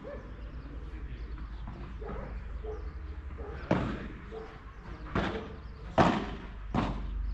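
Padel ball being hit back and forth in a rally: four sharp knocks of ball on racket and court in the second half, the loudest about six seconds in, over a steady low rumble.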